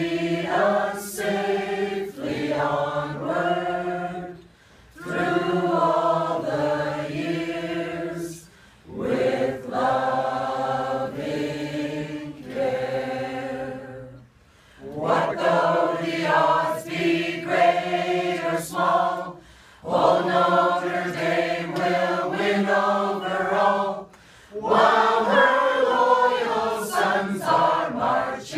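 Mixed choir of men and women singing a cappella, in sustained phrases of about four to six seconds with short breaths between.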